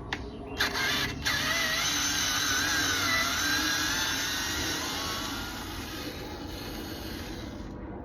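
Cordless power drill/driver running in one long spell with a whine that wavers in pitch, backing out the screws of the electric unicycle's toe pads. It starts about half a second in and stops just before the end.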